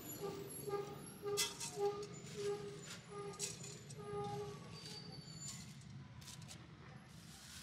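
Light background music: a run of short repeated notes around one pitch with jingly percussion, fading out about halfway through, over a low steady hum.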